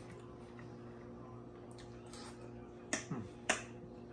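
A steady low hum with three short, sharp clicks close together about three seconds in.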